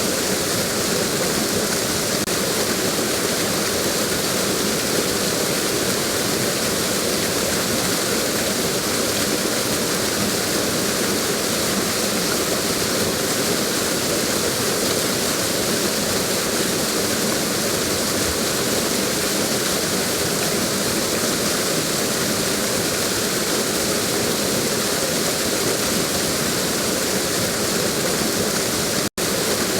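Waterfall: water pouring and splashing in a steady, dense rush. The sound cuts out for an instant near the end.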